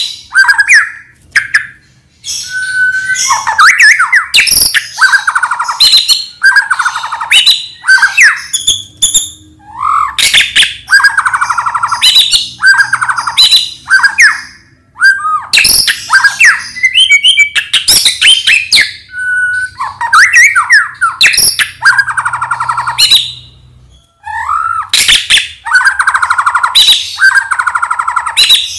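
White-rumped shama (Medan-type murai batu) singing loudly and continuously. Its phrases mix rapid trills and harsh chattering notes with clear whistles, broken by short pauses every few seconds.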